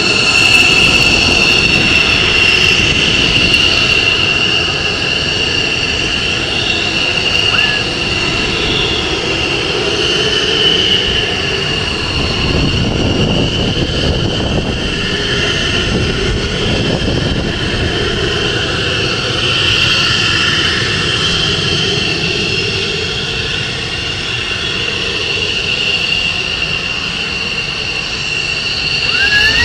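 F-16 fighter jet engine running loud: a steady high turbine whine over a deep rumble that swells around the middle.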